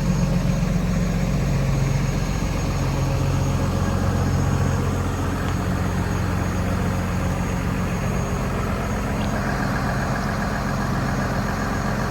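Diesel engine of a 2019 DAF LF260 lorry idling steadily.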